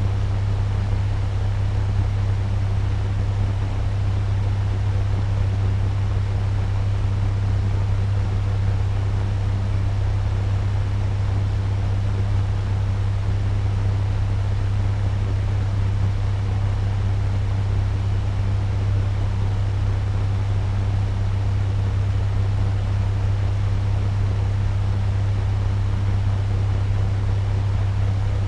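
Turbo fan running steadily at medium speed: an even rush of air over a strong low hum, unchanging throughout.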